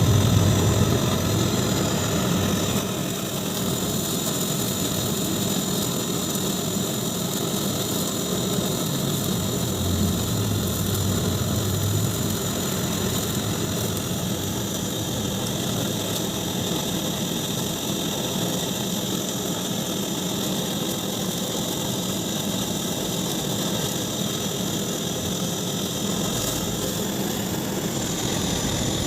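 A machine running steadily: a motor drone with a high whine over it, a little louder for the first couple of seconds, then even.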